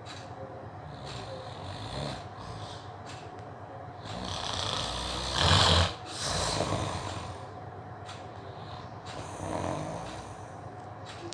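A man snoring in his sleep: snoring breaths every few seconds, the loudest one about halfway through.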